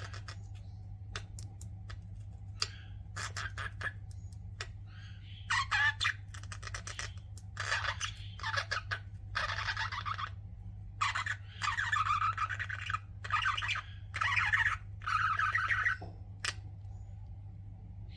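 Pet budgerigars chirping and chattering in quick bursts. The calls are sparse, with a few sharp ticks, for the first few seconds, then come thick and loud from about five seconds in until near the end.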